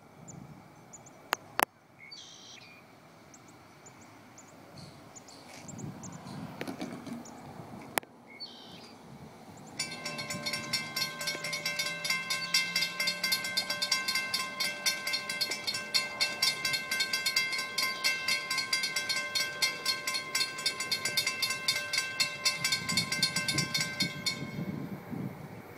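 Railroad grade-crossing warning bell ringing in a rapid, steady clang, starting about ten seconds in after quiet outdoor sound with a couple of sharp clicks. It stops shortly before the end as the crossing gate arm comes down.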